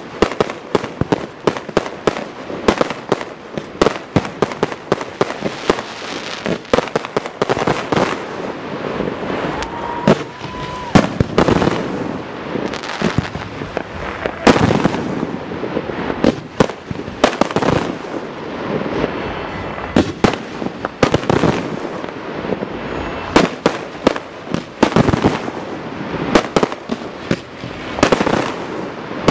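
Aerial fireworks display: shells bursting in quick, irregular succession, loud sharp bangs over continuous crackling. A short steady whistle sounds about ten seconds in.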